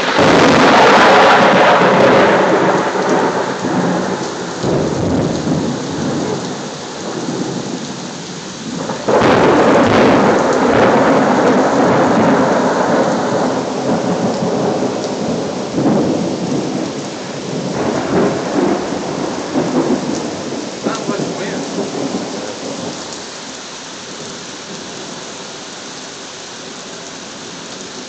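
Close thunder: a sudden loud peal right at the start that rumbles and fades, then a second loud peal about nine seconds in that rolls on for several seconds. Steady heavy rain runs underneath and is left alone near the end.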